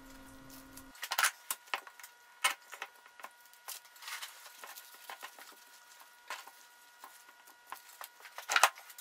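Small bar clamps being fitted and tightened on a stack of glued segmented wood disc layers: irregular clicks and knocks of metal clamp parts against wood, with a louder flurry of handling noise near the end.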